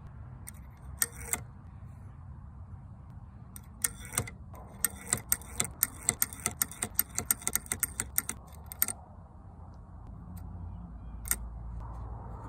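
Light metallic clicks and rattles from handling the mechanism of a Winchester M1890 pump-action .22 rifle. A few single clicks come early and late, and in the middle a quick run of about five clicks a second lasts some four seconds.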